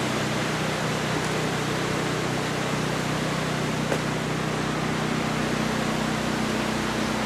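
Portable generator running steadily: a constant low hum under an even rushing noise.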